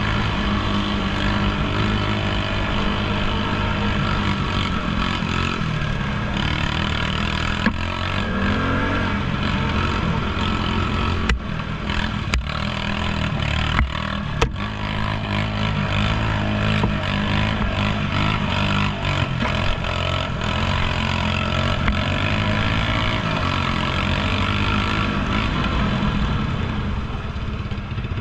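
ATV engine running under way, its pitch rising and falling with the throttle. Several sharp knocks and clatters come between about 8 and 15 seconds in, as the machine rides over rough trail.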